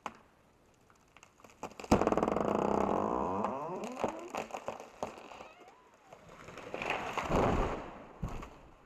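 Chainsaw revving up suddenly about two seconds in, then winding down, with sharp cracks along the way. It revs up again briefly near the end.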